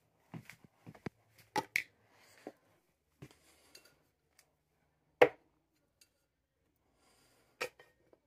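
Makeup containers and small toiletries being handled and set down on a vanity: a scatter of light clicks and knocks of hard plastic and glass, with the loudest knock about five seconds in and another near the end.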